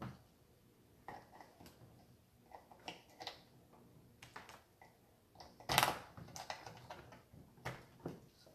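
Scattered light clicks and taps from something being handled, with a sharper knock about six seconds in and another near the end.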